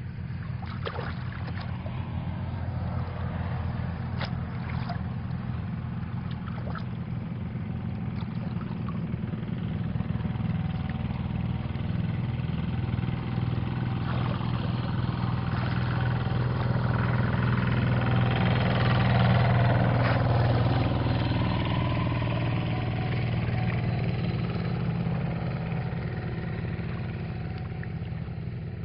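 A steady engine drone that grows louder for a few seconds past the middle and then eases off. Under it, water sloshes as hands work a bamboo basket fish trap in a shallow ditch.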